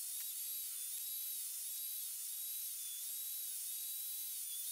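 Skil benchtop table saw running, its motor giving a steady high-pitched whine that wavers slightly in pitch.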